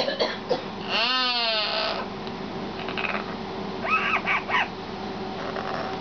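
Yellow-naped Amazon parrot calling: one long harsh call sweeping down in pitch about a second in, then a quick run of three or four short arched calls about four seconds in.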